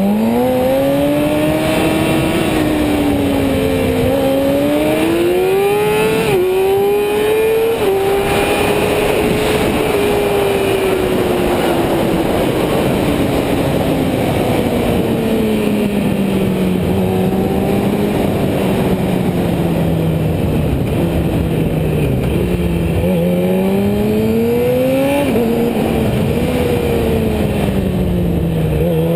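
Racing motorcycle engine at full race pace, revving up through the gears with quick upshifts about six and eight seconds in. The engine note then falls slowly for a long stretch as the bike slows, and near the end it accelerates and shifts up again.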